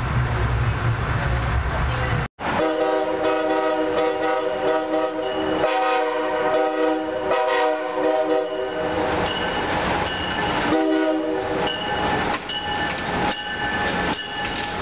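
Low rumble of a moving train cuts off abruptly about two seconds in. Then a multi-note train horn sounds a series of long blasts with short breaks between them, over rail noise.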